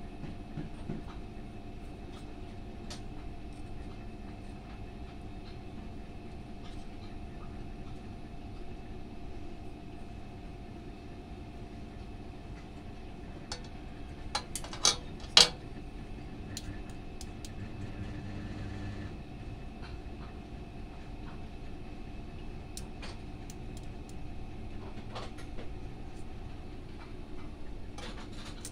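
Steady low hum with a few faint steady tones held under it, and scattered sharp clicks. A quick run of three louder clicks comes about halfway through.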